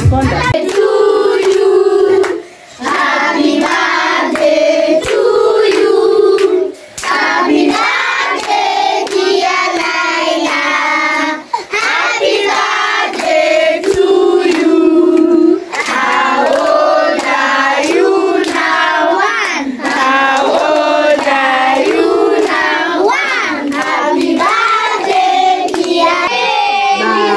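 A group of children and adults singing together, with hand clapping.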